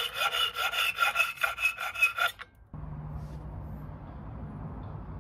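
Hacksaw cutting through a metal window-handle screw held in a clamp: quick back-and-forth strokes, about two and a half a second, with a metallic ringing. The sawing stops a little past two seconds in, leaving a low steady rumble.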